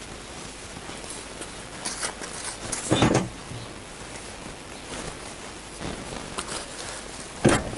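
Metal knocking and clanking as a Honda CBR1000F engine is shifted around inside its frame during removal: a heavy knock about three seconds in and another near the end, with lighter clanks in between over a steady hiss.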